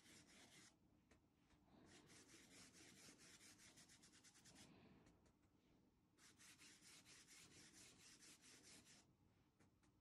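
Faint scratchy rubbing of a flat paintbrush scrubbing craft paint onto a fabric apron in quick back-and-forth strokes, in three runs of strokes with short pauses between them.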